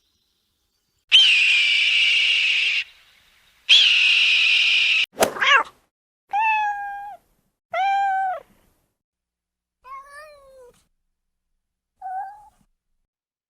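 Domestic cat meowing several times, a couple of loud drawn-out meows then fainter, shorter ones. Before the meows come two long harsh, hissy calls about 2 s apart.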